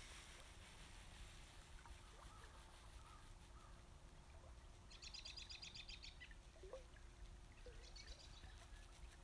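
A small songbird's fast, high trill, sung twice: a longer one about five seconds in and a shorter one near the end, with a few faint chirps between, over a faint low rumble of outdoor air.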